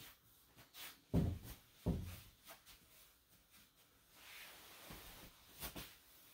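Two heavy footsteps about a second apart, then a soft swishing of kimono cloth and feet sliding on tatami as a person kneels, with a couple of light taps near the end.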